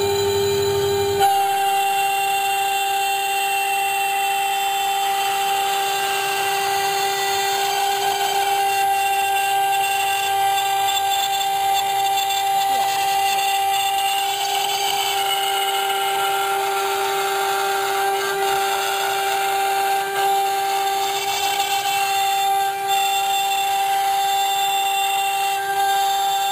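CNC router spindle running at a steady high whine while its bit cuts into a wooden board, with the hiss of the cut under the tone.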